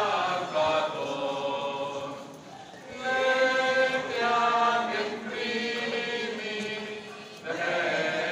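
A group of voices singing a hymn together in long held phrases, with short pauses between phrases about two seconds in and again near the end.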